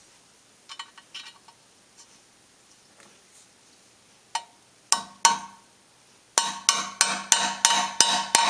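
A hammer tapping a screw extractor into a drilled-out broken wheel screw, with short metallic ringing strikes. There are three single strikes, then a run of about seven quicker blows at roughly three a second near the end.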